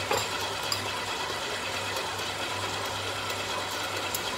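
Stand mixer's motor running steadily with a low, even hum, while its beater turns in the bowl. A few faint clicks come through over it.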